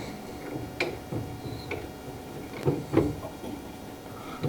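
A few scattered light clicks and knocks of hand adjustment at a table saw, with no motor running; two knocks close together about three seconds in are the loudest.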